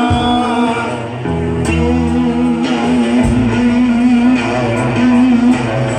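Live band playing, with electric guitar to the fore over a bass line: an instrumental stretch between sung lines, a note held with vibrato in the second half.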